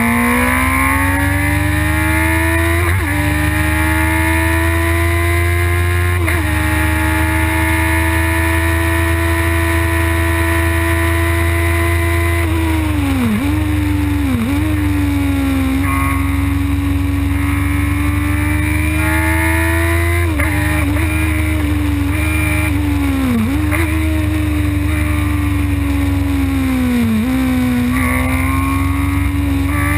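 Open-cockpit race car's engine heard on board during a track lap. Revs climb, hold steady on the straight, then dip and pick up again several times through the corners.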